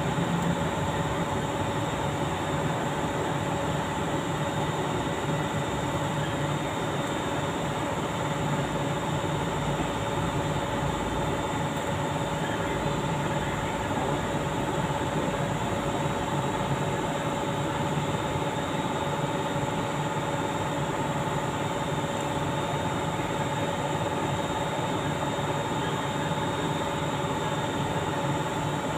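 A steady machine drone: a constant hum with a few fixed tones over a hiss, unchanging in level throughout.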